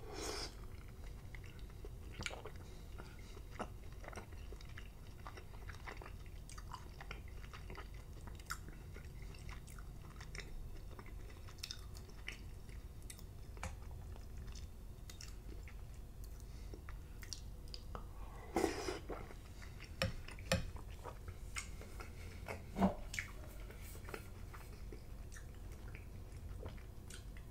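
Close-miked wet chewing of soft, slimy cooked spinach, with small mouth clicks and lip smacks throughout. A few louder, sharper clicks come about two thirds of the way through.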